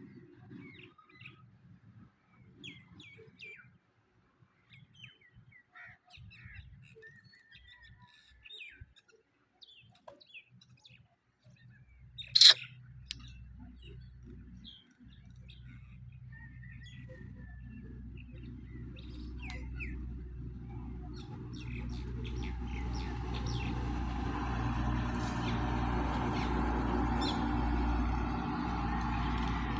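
Small birds chirping in short, scattered calls, with one sharp loud knock about twelve seconds in. After that a low rumble and a rising rushing noise build up and become the loudest sound near the end.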